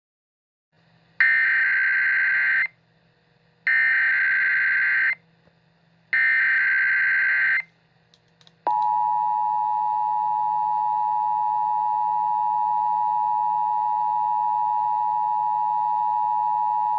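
Emergency Alert System alert tones: three identical warbling digital data bursts of the header, each about a second and a half long. About eight and a half seconds in, the steady two-tone attention signal starts and holds for about nine seconds. A faint low hum lies underneath.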